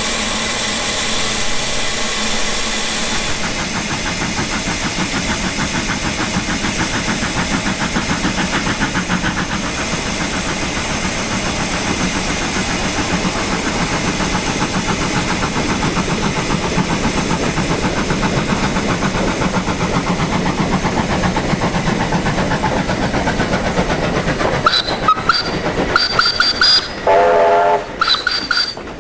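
Steam locomotive W22 running past with its train of carriages: steady wheel and engine noise with a fine even rhythm. Near the end there are several short steam-whistle blasts at two different pitches.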